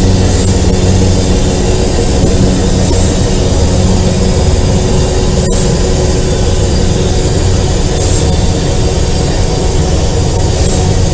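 Diesel engine of an Alco RS8 locomotive running steadily under way, heard from inside its cab, a deep even drone with rail and wheel noise. The sound drops out for a split second about halfway through.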